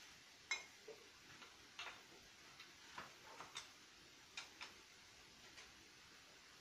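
Light, irregular clicks and taps of small parts being handled and fitted onto the top of a car's front shock absorber and coil spring, about a dozen in all, the sharpest about half a second in with a brief metallic ring.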